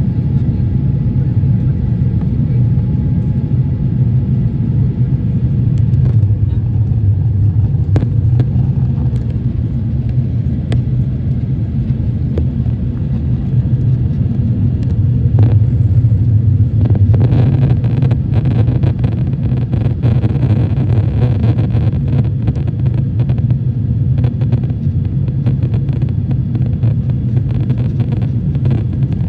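Cabin noise inside an Airbus A350-900 around takeoff: a loud, steady low rumble from its Rolls-Royce Trent XWB engines and the airflow, with more hiss from about halfway through.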